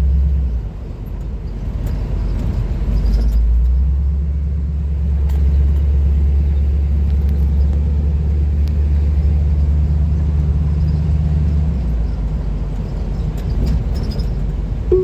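Van engine running while driving, a steady low drone with road rumble. The drone shifts in pitch about half a second and four seconds in, then drops away near the end.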